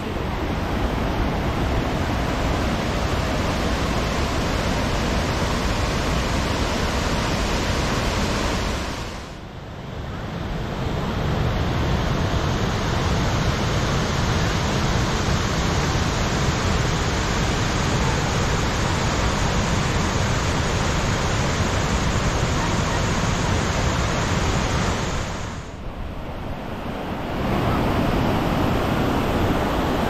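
A large waterfall in full monsoon flow: a steady, loud rush of falling water. It drops away briefly about nine seconds in and again near the end.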